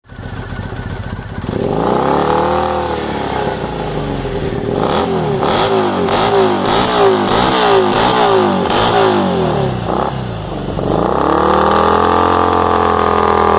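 Triumph Bonneville T100 parallel-twin engine revving loudly through an aftermarket Hurricane exhaust. The revs rise about two seconds in, then swing up and down in quick throttle blips about twice a second with sharp crackles, drop briefly, and are held high near the end.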